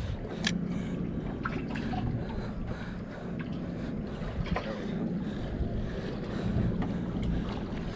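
Wind buffeting the microphone and water sloshing against a boat's hull, over a low steady hum, with a few light clicks and knocks scattered through.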